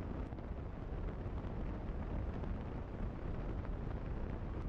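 Steady low rumble of wind buffeting the microphone of a camera on a moving motorcycle, mixed with road and engine noise, with no clear engine note standing out.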